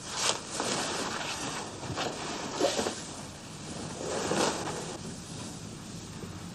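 Bedclothes rustling as they are pulled up and shifted, in several soft bursts.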